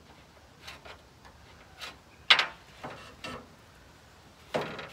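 Wooden 2x2 rail handled on a metal table: a few light clicks and taps, a sharp knock a little over two seconds in and another near the end.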